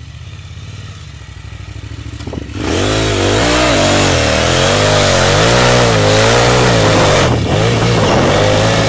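KTM 950 Super Enduro's V-twin engine revving hard, its pitch swinging rapidly up and down as the rear wheel spins through loose sand on a climb. It runs more quietly at first, then jumps suddenly to full throttle about two and a half seconds in.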